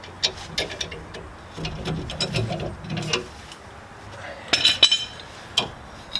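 Metal clinks and rattles of hand tools and parts, heard while fittings are taken off a truck's rear leaf spring pack. Scattered sharp clicks come first, then a louder cluster of ringing metallic clinks about four and a half seconds in, and one more clink after it.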